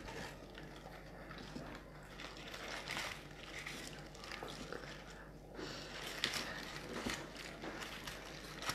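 Faint rustling and crinkling of paper fast-food bags and wrappers, with small handling noises from eating.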